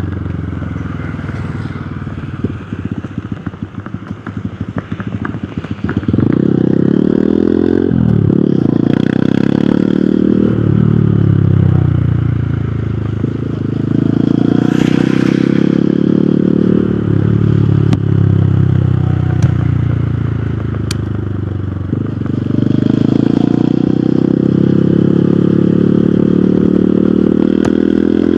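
Hero Hunk motorcycle's single-cylinder engine on the road: low and uneven for the first six seconds, then accelerating hard, its pitch climbing and dropping back at each gear change several times before holding at a steady cruise near the end.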